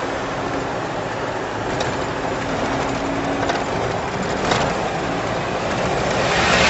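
Steady road and engine noise of a moving car heard from inside the cabin, with a few light clicks, swelling louder near the end.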